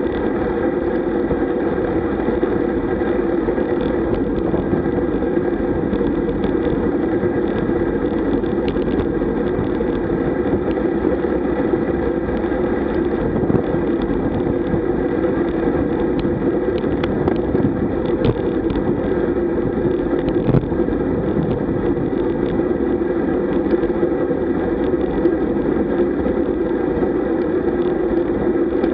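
Steady rush of wind over the microphone with tyre and road noise from a road bicycle riding at about 40 km/h, heard through a bike-mounted camera.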